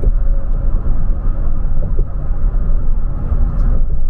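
Steady low rumble of a motor vehicle on the move, with road noise and no distinct events.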